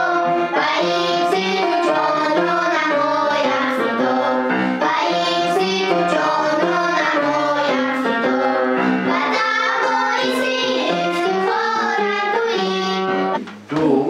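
A group of girls singing a patriotic song together, accompanied on an upright piano. The song breaks off about a second before the end.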